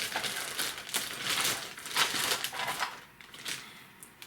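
Toy packaging being opened by hand, crinkling and rustling in repeated bursts, with quieter handling over the last second or so.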